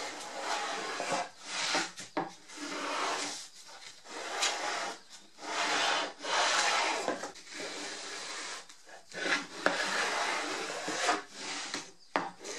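Rasping rubs of a small hand tool stroked along the corner of a cedar board, easing a slight chamfer on the show face, in repeated strokes of about half a second to a second each. A sharp light knock near the end.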